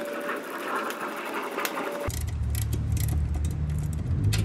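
Refrigerant hissing through an AC condenser's brass service valves as they are opened with an Allen key, with a few metal clicks from the key. About halfway through, the hiss gives way abruptly to a low, steady machine hum.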